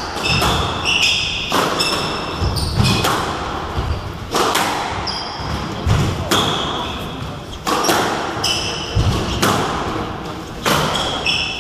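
A squash rally: the ball cracks off the rackets and the court walls every second or so, each hit echoing briefly in the hall. Short high squeaks from the players' shoes on the wooden floor come between the shots.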